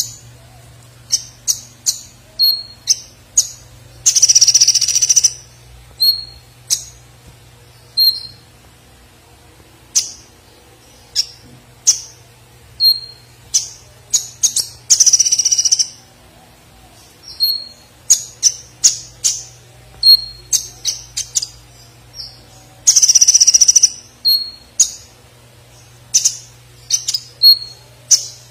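Caged kolibri ninja sunbird singing: sharp high chirps about once a second, broken three times by a harsher trilled phrase lasting about a second. A steady low hum runs underneath.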